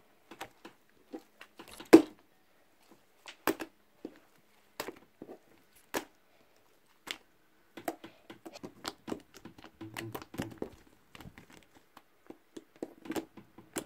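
Hands kneading and stretching a glossy PVA-glue and borax slime, making irregular sticky clicks and small pops, the loudest about two seconds in.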